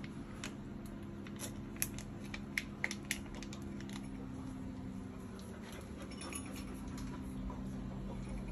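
Hand mixing rice and gravy in a stainless steel bowl, with a few sharp, light clicks against the metal between about one and a half and three seconds in, over a steady low hum.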